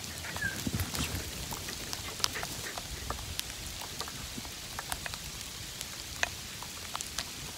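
Ice crackling in the trees during an ice storm: scattered sharp ticks and crackles over a steady light hiss, like rain.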